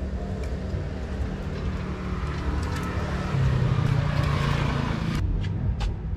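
A motor vehicle running, its sound swelling to a peak about four seconds in. The higher hiss cuts off abruptly about a second later, leaving a low rumble.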